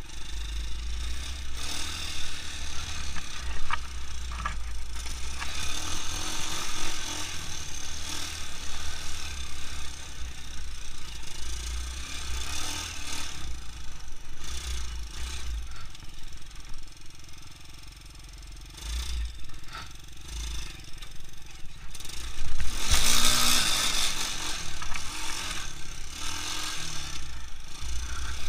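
Small ATV (quad) engine running as the quad rides along a snowy track, with a low rumble and hiss throughout. It eases off and goes quieter about two-thirds of the way through, then has a louder hissing stretch of about two seconds shortly after.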